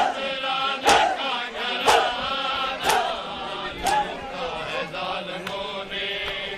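A large crowd of men chanting a lament in unison, punctuated by loud, synchronised chest-beating strikes (matam) about once a second. The strikes grow weaker after about four seconds.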